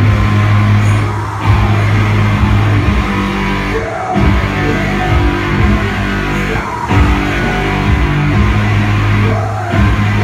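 Loud live industrial doom metal played on custom-built mechanical controllers: a heavy, distorted bass drone with a slow beat, dipping briefly about every two and a half seconds.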